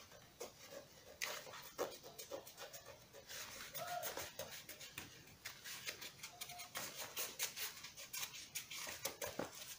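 Faint scratchy rubbing and rustling of fingertips pressing and smoothing a glued patch onto a BCD's nylon fabric. A couple of brief, faint tones come in about four and six and a half seconds in.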